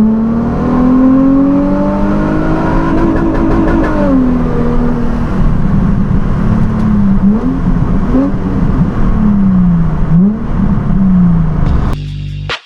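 Nissan 350Z's 3.5-litre V6 pulling under acceleration, its pitch rising for about four seconds and then dropping sharply at a gear change. Later it rises and falls several times in quick swings before the sound cuts off near the end.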